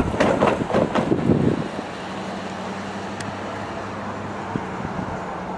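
Gusty rumbling for about the first second and a half, then a steady low engine hum.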